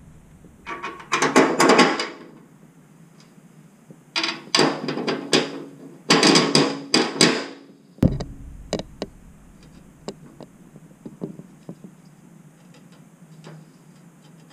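A metal plate being handled and shifted into position over metal seat brackets in a plastic go-kart tub: three bursts of scraping and clattering in the first half, then scattered light clicks and taps.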